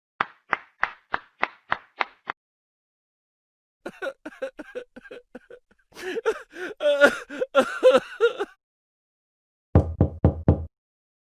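A run of sound-effect clips: first about eight quick, evenly spaced knocks, then a few seconds of choppy pitched sounds, then a short burst of about five heavy low thuds near the end.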